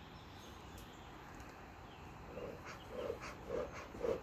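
Bee smoker bellows being pumped, a run of short puffs of air about two a second starting about halfway through, fanning the burning pine-needle fuel in the smoker's fire chamber.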